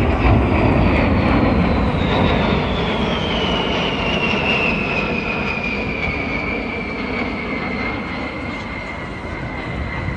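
A B-52 bomber's eight jet engines passing low and fast. It sounds as a loud rumble, strongest at the start and slowly fading, with a high whine that falls steadily in pitch as the aircraft moves away.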